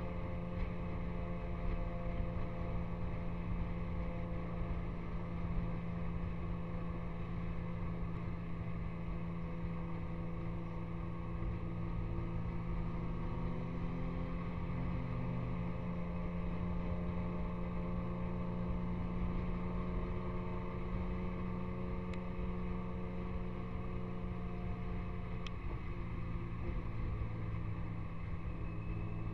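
Vehicle engine running steadily at an even, unchanging speed, a constant low hum with a stack of steady tones and no revving.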